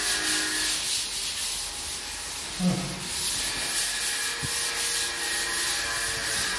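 Sandpaper rubbed by hand back and forth over a plastered wall, smoothing it for paint: a scratchy hiss that swells and fades with each stroke. One brief low sound about two and a half seconds in.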